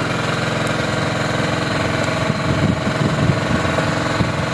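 A small engine running steadily, with an even, unchanging note.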